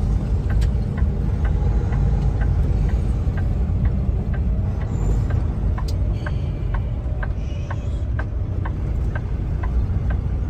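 Semi-truck cab: the diesel engine and road rumble running steadily, with the turn signal clicking about twice a second while the truck makes a turn at an intersection.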